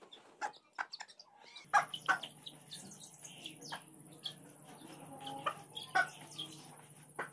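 Young Aseel chicks cheeping in short, scattered calls, with a hen clucking among them, while they peck at feed on the ground.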